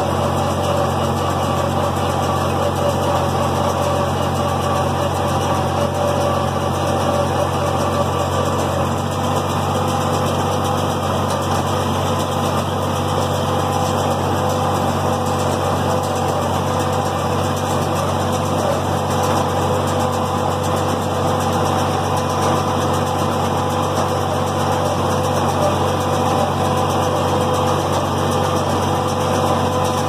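John Deere 4020 tractor's six-cylinder engine running steadily under load, pulling a John Deere 337 small square baler that is picking up and baling hay.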